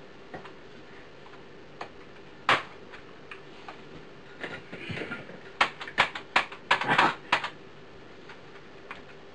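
Scattered sharp clicks and knocks, the first loud one about two and a half seconds in, then a quick cluster of louder knocks between about five and a half and seven and a half seconds, over a faint steady hum.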